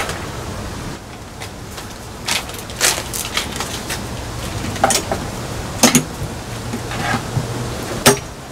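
Hand work on plumbing fittings in a compartment: about five scattered sharp clicks and knocks, the loudest near the middle and near the end, over a low steady hum.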